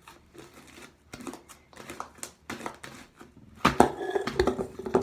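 Sticky fluffy slime of shaving cream and PVA glue being kneaded by hand: irregular wet clicks and crackles, sparse at first, then louder and much denser past the halfway point. The slime is still too sticky, under-activated and clinging to the hands.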